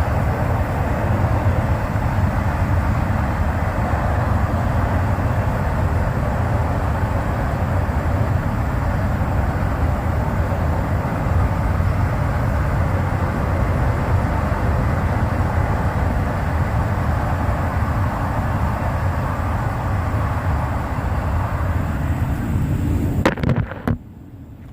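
Freight train passing, a steady, unbroken noise of the cars going by; it cuts off abruptly with a click near the end.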